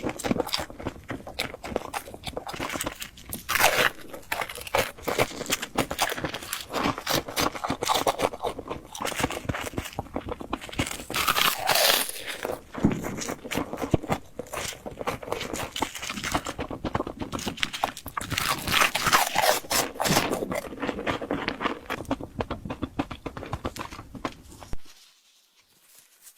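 Close-miked chewing and crunching of crisp fried bread, a dense run of crackly bites and mouth sounds that stops abruptly near the end.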